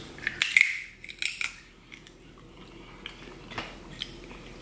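Close-miked eating sounds: wet chewing and crunchy clicks of a mouthful of snow crab in the first second and a half, then a couple of sharp cracks of crab-leg shell being snapped apart by hand near the end.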